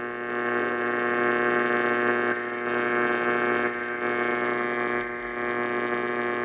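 Emergency Alert System attention tone: a steady, harsh electronic alarm tone with a dense stack of overtones, the signal that an emergency weather warning is about to be read.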